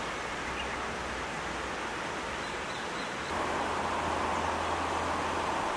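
Steady rush of running water over rocks. About three seconds in it gets louder and fuller, with a low hum underneath.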